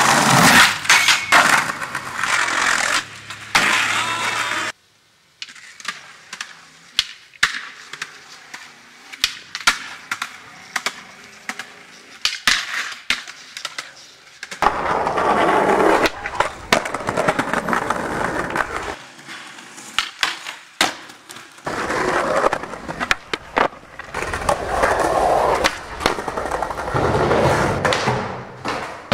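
Skateboard sounds from several raw clips: wheels rolling on concrete and wood, with sharp clacks of tail pops and board landings and the scrape of grinds on ledges and metal ramp coping. A quieter stretch of scattered clicks comes in the first half, and louder rolling returns about halfway through.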